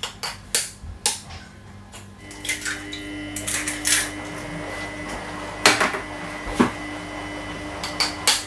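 Irregular sharp clicks and knocks of a kitchen knife and bowls while food is cut by hand. A steady hum comes in about two seconds in.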